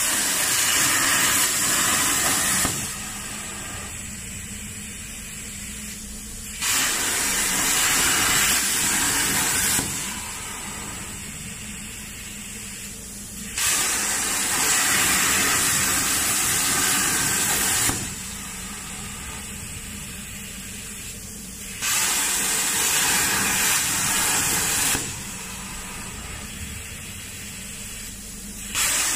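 CNC air-plasma cutting torch cutting steel plate: the arc's loud, harsh hiss starts and stops suddenly five times, each cut lasting about three to four seconds. A softer steady hiss of air fills the gaps between cuts.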